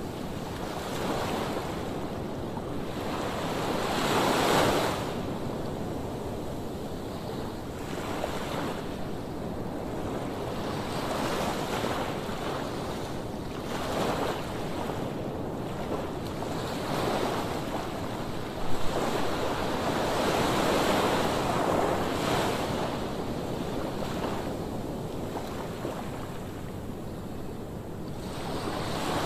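Sea waves breaking on the shore, the surf swelling and falling back every few seconds, with wind buffeting the microphone.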